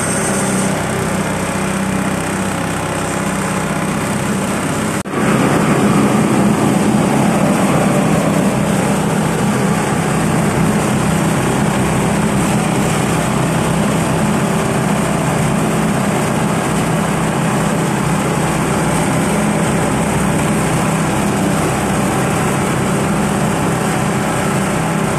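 Small petrol engine running steadily while it belt-drives a grinding mill that is milling a mix of rice husk and corn cobs into bran. About five seconds in, the sound breaks off for an instant and comes back louder, with more grinding noise.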